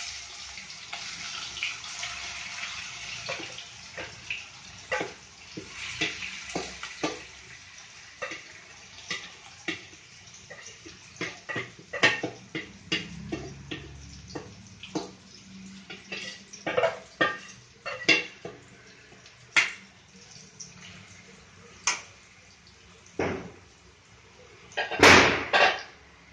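Marinated prawns frying in hot oil in a kadai, with a faint sizzle under repeated clinks and scrapes of a steel slotted spoon against the steel bowl and the pan as the prawns are scraped in. There is a louder clatter of metal near the end.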